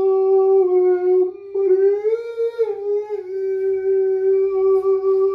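A man singing one long, high held note. The pitch stays steady apart from a brief swell up and back down about two seconds in.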